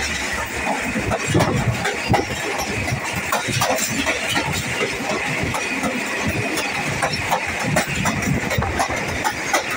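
Passenger train coach running along the track, heard close over the rear coupling: a steady rumble of wheels on rails with frequent clicks and knocks of wheel and running-gear clatter.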